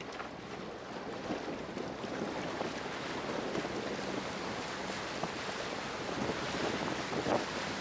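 Wind buffeting the microphone over water splashing and rushing along the hull of a small jon boat as it moves off, growing gradually louder.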